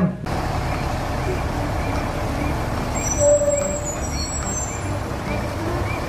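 Heavy truck crane's diesel engine running steadily in an open yard, a low rumble under outdoor traffic hiss. A faint high chirp repeats about twice a second, typical of a reversing beeper.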